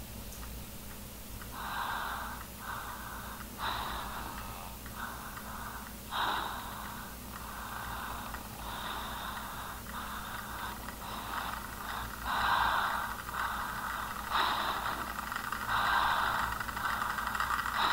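A run of uneven breaths in and out, each under a second, growing louder and coming faster toward the end, over a low steady hum.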